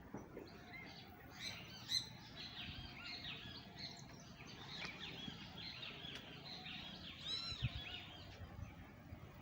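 Several birds chirping, many short arched calls overlapping in a busy chorus that fades near the end.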